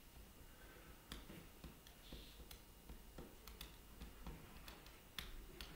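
Near silence: quiet room tone with a low hum and about a dozen faint, irregular clicks and taps.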